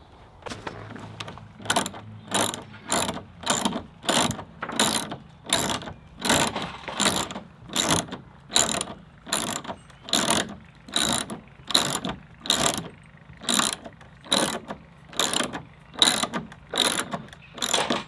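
Hand ratchet wrench clicking in a steady rhythm of about two strokes a second as it drives a hex-head bolt through a milled ash cladding board into the cabin's timber frame.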